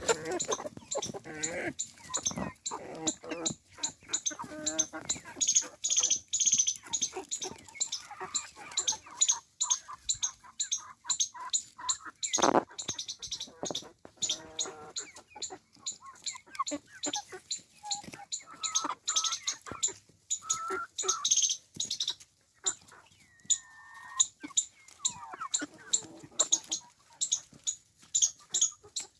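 Chickens calling: clucking with many short, high, rapid peeping calls throughout.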